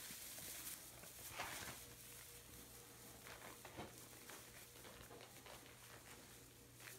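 Faint rustling and crackling of straw under a puppy's paws as it walks about, a few soft crackles over a low steady hum, close to silence.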